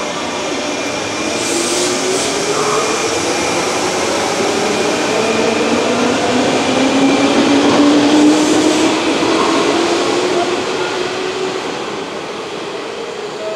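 JR 201 series electric train pulling away, its armature-chopper control whining in tones that rise slowly as it gathers speed, over wheel and rail running noise. Two brief sharp sounds come about 2 s and 8 s in.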